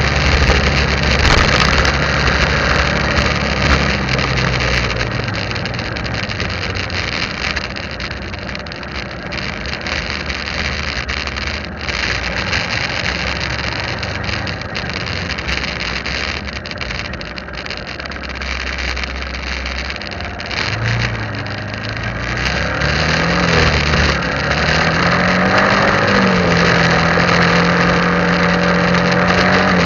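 Motorcycle engine running as it rides along, under a steady rushing road and wind noise. About three quarters of the way through, the engine pitch rises in a couple of glides, then holds steady at a higher note.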